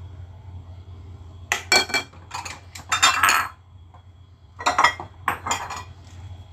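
Steel ladle clinking and scraping against glass bowls as batter is ladled out, in two clusters of quick ringing clinks, the first about one and a half seconds in and the second near five seconds in. A steady low hum runs underneath.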